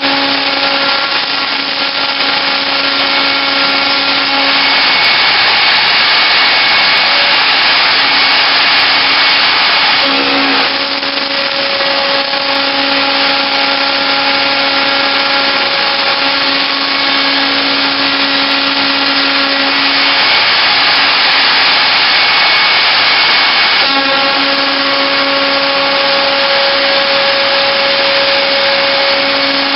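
CNC router spindle driving a small end mill through an aluminium profile, milling slots: a loud, steady whine with several tones over harsh cutting noise. The tones break and shift briefly twice, about a third and again about four-fifths of the way through, as the cutter moves on to the next slot.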